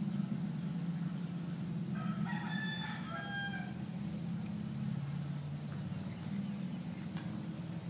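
A bird's call of about a second and a half, several notes rich in overtones, over a steady low hum.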